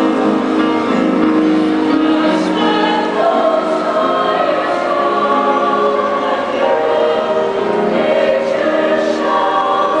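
Mixed choir of men and women singing together in harmony, with sustained notes that shift in pitch.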